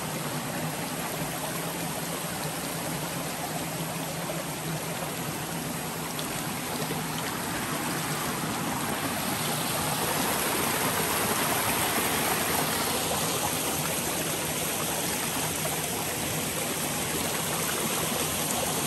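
Water of a small, shallow rocky stream running steadily over stones. It gets a little louder about halfway through.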